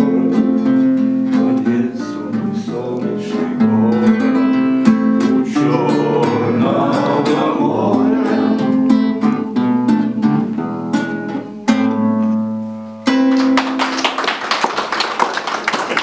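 A man singing to his own strummed acoustic guitar; the song ends on a held, fading chord about thirteen seconds in, and the audience breaks into applause.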